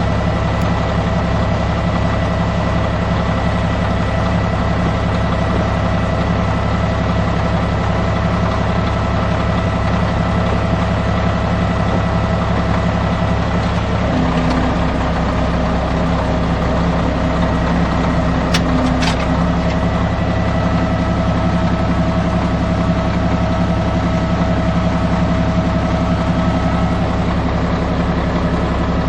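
Caterpillar D6C bulldozer's diesel engine running steadily, its low note shifting about halfway through, with two brief sharp clicks a little later.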